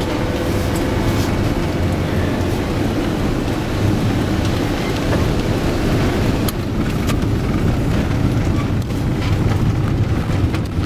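Road noise heard from inside a vehicle driving fast over a bumpy snow-covered road: a steady low rumble of engine and tyres, with sharp knocks and rattles from the jolting.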